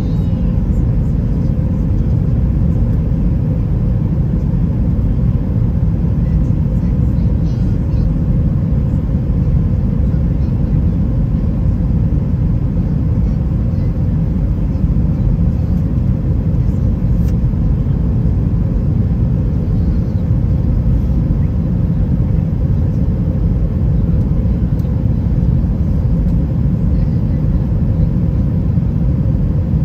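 Airbus A320-212 cabin noise in flight: a steady low rumble of engine and airflow noise with a faint steady hum above it.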